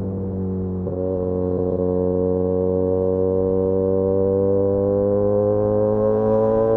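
Benelli 302S's parallel-twin engine through an Austin Racing titanium aftermarket exhaust, pulling steadily with its pitch climbing slowly as the bike accelerates. There is a brief break in the note about a second in.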